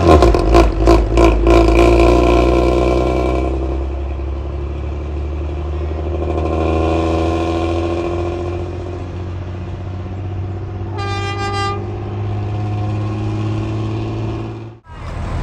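Coach bus diesel engine revving hard in quick pulses as the bus manoeuvres, then pulling steadily as it drives away, through a loud open exhaust. A horn toots briefly about eleven seconds in. The sound cuts off abruptly just before the end.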